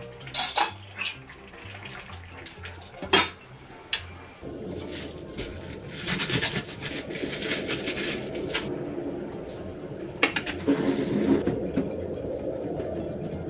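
Two sharp knocks, then a kitchen tap starts running into a stainless steel sink about four seconds in. The water splashes over a chef's knife and then over a bunch of enoki mushrooms as they are rinsed, getting louder where the stream is broken by them.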